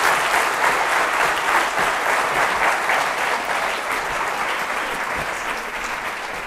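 A large audience applauding, the clapping slowly dying down.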